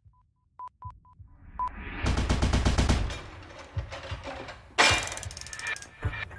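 Sound effects opening a rap track: a string of short, steady-pitched high beeps, then a burst of rapid machine-gun fire about two seconds in and another near five seconds.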